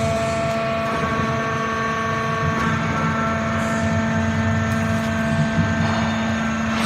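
Hydraulic foam baling press running: a steady motor-and-pump hum with several whining tones that shift a few times as the press works.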